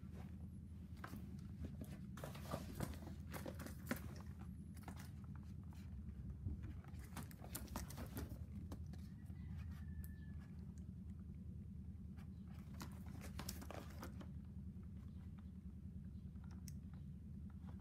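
Cardboard figure boxes handled by hand: scattered faint rustles, scrapes and taps as they are picked up, turned and set side by side, over a low steady hum.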